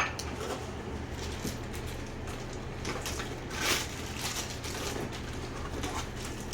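Faint rustling and handling of the TV's packaging over a steady low hum, with a brief louder rustle about three and a half seconds in.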